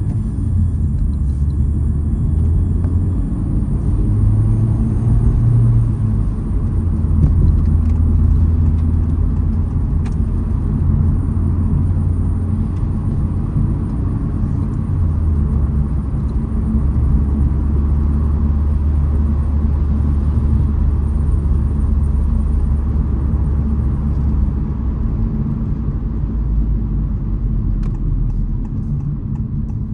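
Honda Civic Type R (FL5) driving, its turbocharged four-cylinder engine and road noise making a steady low rumble. The engine note shifts in pitch several times.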